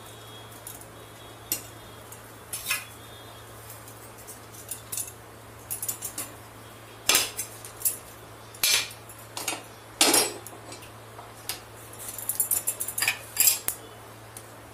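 Metal kitchenware clattering as rotis are cooked on a gas stove: steel tongs and an iron tawa clink and knock against the stove and pans. The sharp clinks come scattered, with more of them in the second half.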